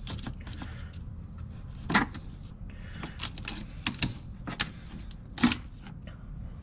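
Irregular metallic clicks and clinks of a hand tool and terminal hardware as the bolt on a battery's negative terminal is loosened and the ground cable is worked off the post, with a few louder sharp strikes among them.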